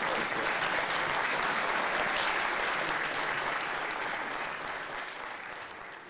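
Audience applauding, the clapping fading away over the last couple of seconds.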